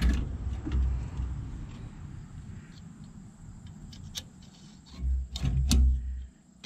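Hands working small metal retaining clips into a tractor's radiator frame: a few sharp metallic clicks and light scrapes, with low rumbling bumps on the microphone, loudest a little past the middle.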